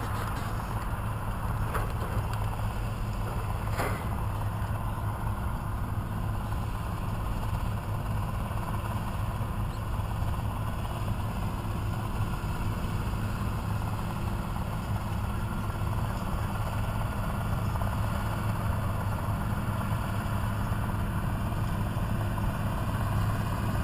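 Tractor and round hay baler running steadily in the field, the engine hum constant while the baler picks up hay and builds a bale, with two faint clicks about two and four seconds in.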